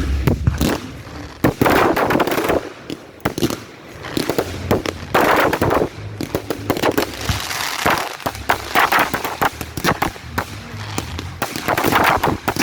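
Fireworks going off: a continuous run of sharp bangs of varying loudness, mixed with crackling and fizzing.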